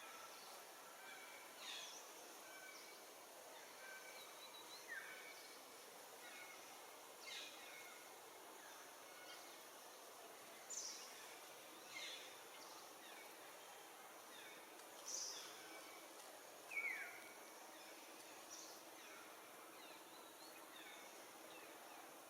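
Faint outdoor ambience over a steady hiss: short, sharp chirps of birds, each falling in pitch, come every couple of seconds, the loudest near the end.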